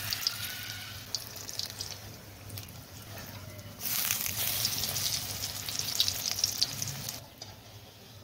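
Hot oil sizzling and crackling as battered paneer pakoras deep-fry in a wok. The crackle grows louder and denser about four seconds in and falls back near the end.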